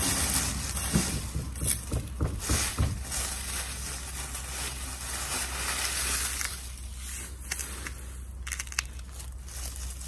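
Dry fallen leaves crunching and crackling as they are gathered up by hand, with a run of sharper crackles in the first few seconds.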